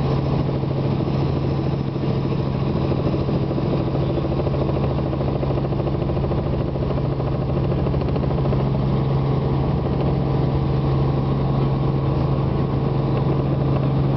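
Steady engine drone inside the cabin of a low-flying aircraft, unbroken and even in level, with a strong low hum.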